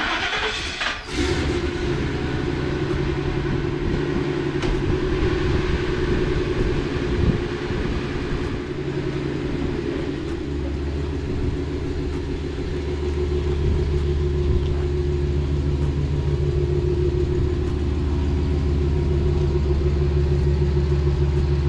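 Turbocharged 5.4-litre V8 of a Ford F-150 starting up, catching about a second in, then idling steadily, not yet warmed up; the idle grows fuller and deeper from about halfway through.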